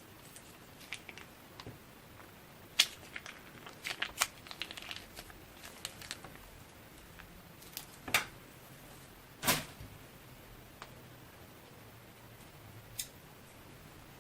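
Slime being handled: scattered small sticky clicks and crinkles, with a few louder crackling pops, the longest about two thirds of the way through.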